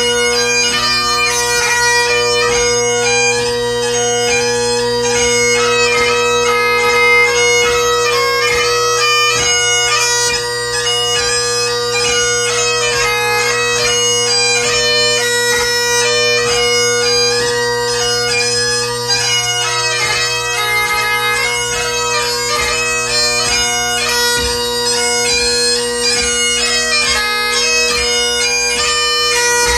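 Great Highland bagpipe played solo, part of a march, strathspey and reel set: steady drones under a quick, continuously changing chanter melody.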